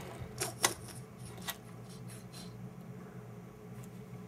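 Wooden fingerboard clicking against a tabletop as it is handled and lifted: three sharp clacks in the first second and a half, then a couple of faint ticks, over a steady low hum.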